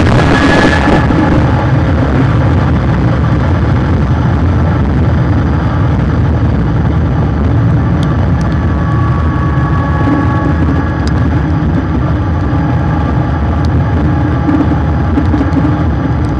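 Car driving at speed heard from a bumper-mounted camera: a loud, steady low rumble of engine, tyre and wind noise.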